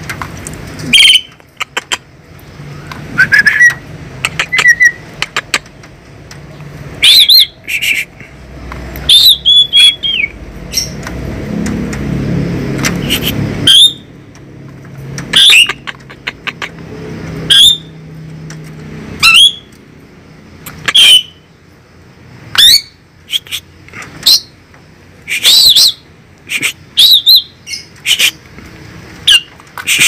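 A pied starling (jalak suren) calling over and over: loud, short whistles and harsh notes that glide sharply up and down, coming in quick clusters. A low rumble swells briefly about halfway through.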